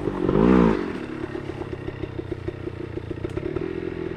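Enduro motorcycle engine blipped once in the first second, its pitch rising and falling, then settling to a steady, evenly pulsing idle.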